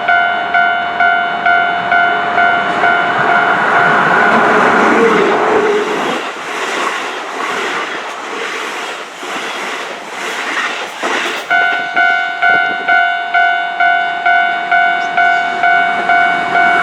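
Level-crossing warning bell ringing at about two strokes a second. A Keihan Electric Railway train then passes and drowns it out, its wheels clattering over the rail joints. The bell is heard clearly again about two-thirds of the way in.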